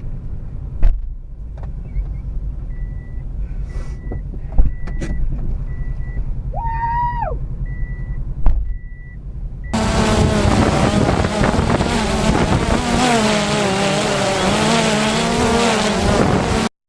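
A car running at a low idle with a warning chime beeping steadily, about one and a half beeps a second, and three sharp knocks. About ten seconds in, a louder, dense sound with wavering tones starts abruptly and then cuts off suddenly near the end.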